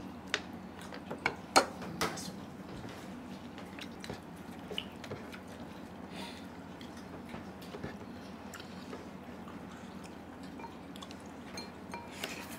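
Quiet eating by hand from a steel plate: a few sharp clinks and taps in the first two seconds, then scattered small ticks and soft scraping over a faint steady hum.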